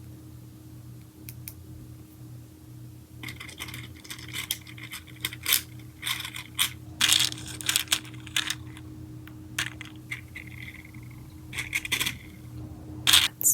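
Small hard plastic slime charms clicking and clinking against each other and their plastic tray, in irregular clusters of sharp clicks after a few quiet seconds, with one loud click near the end.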